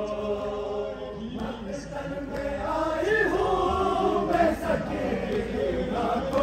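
Men's voices chanting a noha lament together, unaccompanied, in long drawn-out phrases with brief breaks between them.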